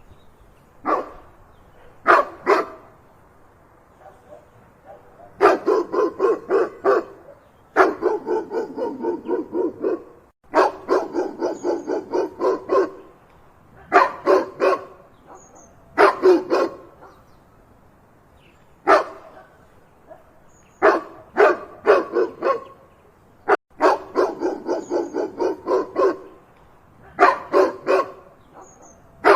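A dog barking loudly in quick volleys of several barks a second. Each volley lasts one to three seconds, with short pauses between them.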